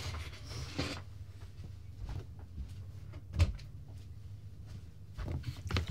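A few scattered knocks and thumps over a low steady hum. The loudest knock comes about three and a half seconds in, and a few more fall near the end.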